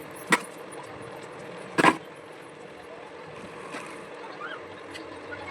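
Two sharp knocks over a steady faint hum: a light one near the start and a louder, slightly longer one just under two seconds in.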